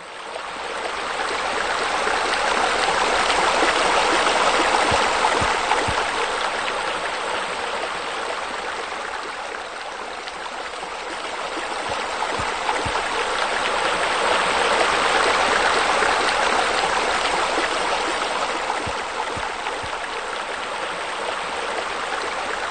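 Running water, a steady rush that swells, dips about ten seconds in, and swells again.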